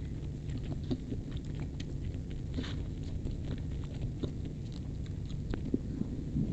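Close-up chewing of fried rice, with small wet clicks and mouth sounds, and a metal spoon scraping and scooping rice in a styrofoam takeaway box. A low steady hum runs underneath.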